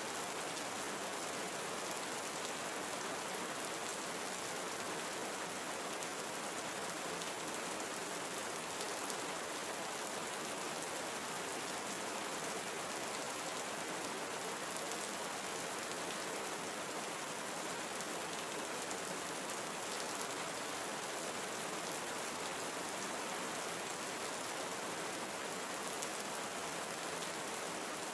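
Steady rain falling in a tropical forest: an even, unbroken hiss of rain.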